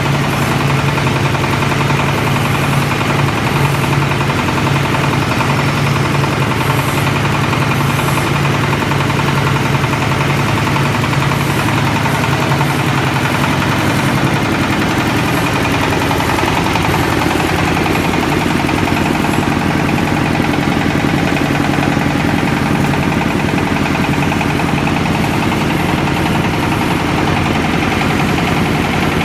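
Multipurpose sieving machine for compost and cocopeat running: a steady motor hum over a dense, fast rattle from the sieve, its tone changing about halfway through.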